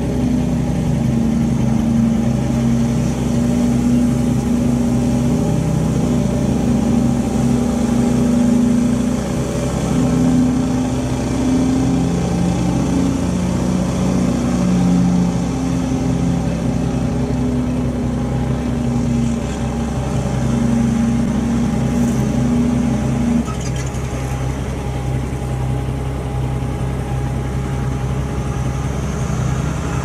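Loaded logging truck's diesel engine running steadily on a hill road, its note shifting now and then, and easing off about two-thirds of the way through.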